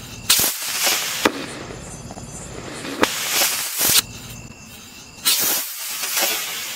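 Diwali rockets combined with bijli bomb crackers going off one after another: three rushing hisses of rocket motors, each a second or so long, with a few sharp cracks from the small bijli bombs bursting.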